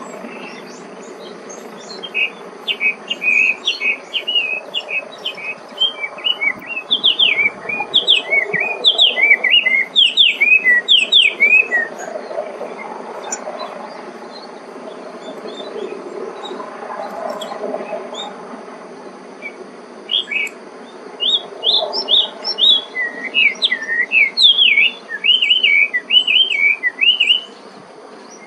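Chinese hwamei singing: two long runs of loud, rapid whistled phrases, with quick notes gliding up and down. The first run starts about two seconds in and the second about twenty seconds in, with a steady low background hum between and beneath them.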